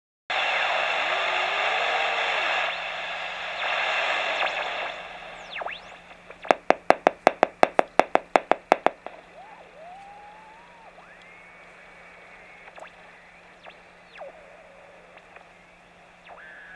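Home-built 27 MHz superregenerative receiver (one NPN transistor and an LM386 audio amplifier) heard through its speaker while being tuned: a loud rushing hiss for about five seconds, then a fast run of about a dozen clicks. After that come quieter whistling tones that rise, hold and then fall in pitch.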